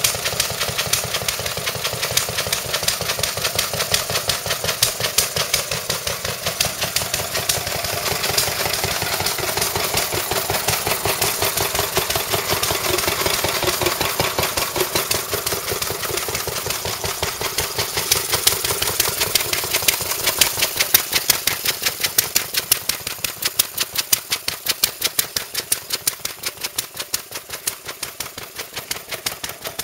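A Lister A and a Lister D, two single-cylinder stationary engines, running together: a rapid, steady, ticking beat of firing strokes. In the last third the separate beats stand out more clearly.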